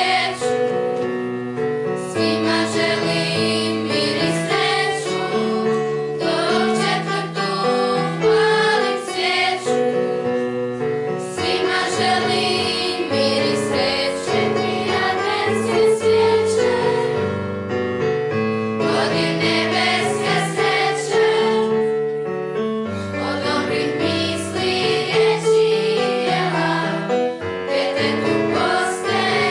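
School choir of young voices singing a song in unison with sustained notes, over an instrumental accompaniment.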